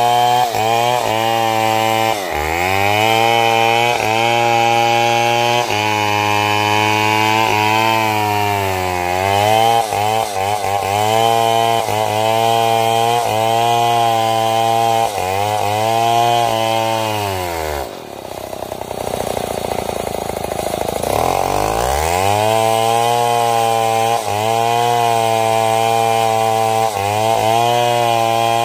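Stihl 070 two-stroke chainsaw running at high revs while cutting into a large sengon trunk, its pitch sagging now and then under load. About two-thirds of the way through it drops to a low idle for a few seconds, then revs back up and cuts on.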